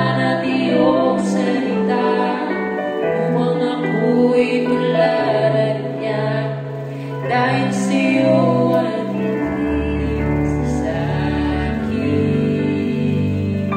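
A slow, gentle ballad playing, with low bass notes coming in about ten seconds in.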